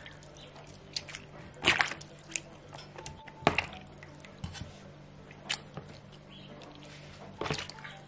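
Cooked beetroots being peeled by hand in a pot of their cooking water: scattered wet squelches and small splashes, about one a second.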